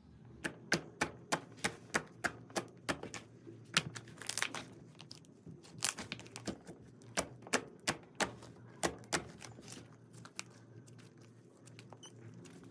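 Slime being pressed and squeezed by hand, making a run of sharp clicking pops, a few a second, which die away near the end.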